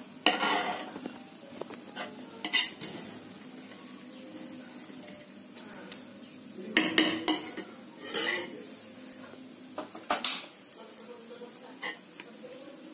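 Ladle scraping and knocking against a large metal pot as freshly cooked dum biryani is turned over and fluffed, in irregular clinks and scrapes with short pauses between.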